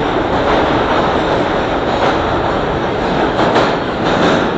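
R160 subway train pulling out of the station at speed, its last cars passing and heading into the tunnel. Wheels and rail make a steady, loud noise.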